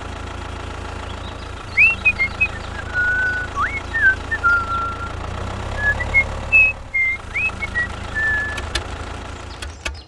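Tractor engine idling with a steady low rumble. Short, high whistled chirps and quick rising glides are scattered over it.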